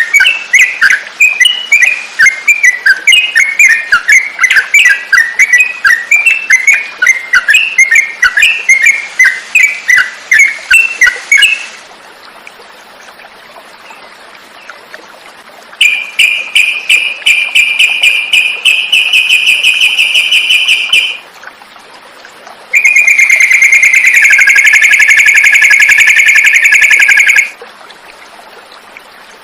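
Yellow-vented bulbul song: rapid bubbly chirping notes for about twelve seconds. After a pause comes a long trill, and after a second pause a louder trill of about five seconds.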